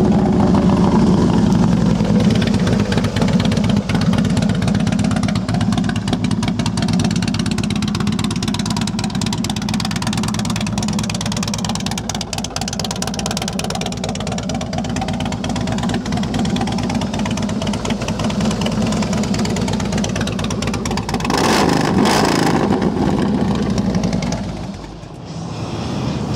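2005 Harley-Davidson Softail Heritage Springer's fuel-injected 88-cubic-inch V-twin idling steadily through slip-on fishtail pipes, with a brief louder surge about three-quarters of the way through that sounds like a throttle blip.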